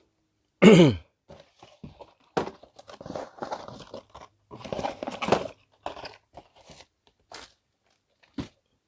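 Plastic lure packaging being handled and torn open, with crinkling and crackling of the plastic. A loud, short sound falling in pitch comes under a second in, then a few seconds of crinkling, and scattered clicks near the end.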